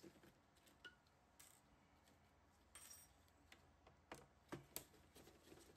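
Faint scattered clicks and ticks of a small screwdriver working tiny screws out of a disc drive's circuit board, with a few sharper ticks between about four and five seconds in.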